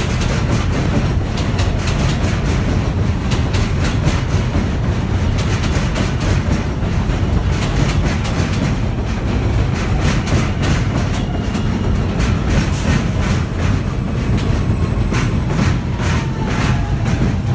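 R160A subway train running into the station and slowing: a steady rumble with wheels clicking over rail joints. A faint motor whine falls in pitch in the second half as the train brakes.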